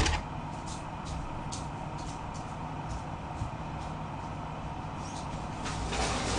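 Steady low room hum with faint scattered clicks and knocks, growing a little louder near the end.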